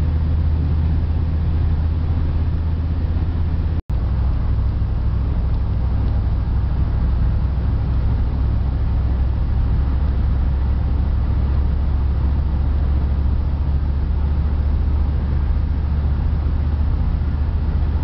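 Steady in-cab drone of a 1995 Dodge Dakota's 318 V8 running on wood gas, cruising with tyre and road noise, heavy in low rumble. The sound breaks off for an instant about four seconds in.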